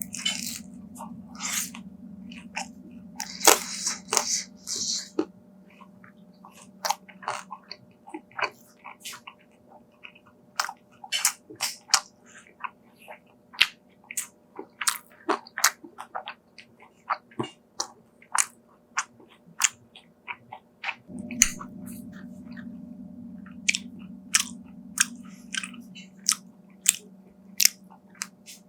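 Close-miked biting and chewing of deep-fried dumplings: crisp crackling of the fried wrapper, densest at the start and again about three to five seconds in, then a steady run of sharp chewing clicks about twice a second.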